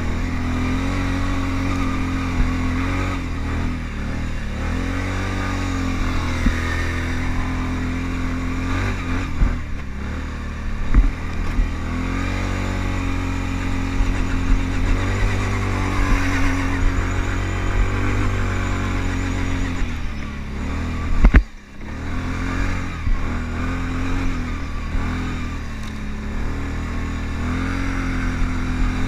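Kawasaki Brute Force ATV engine running under way through snow, its pitch rising and falling with the throttle. About 21 seconds in there is a single sharp knock, and the engine sound drops off briefly.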